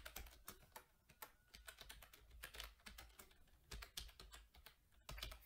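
Faint typing on a computer keyboard: a run of irregular key clicks.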